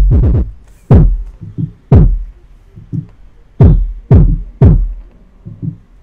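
Music played through a Taga Harmony powered subwoofer during a sound test of its repaired amplifier: a loose run of sharp, deep bass hits with quieter gaps between them.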